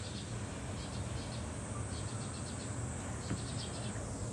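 Outdoor ambience of insects chirping in short trains of rapid, high-pitched pulses that come and go, over a steady low rumble.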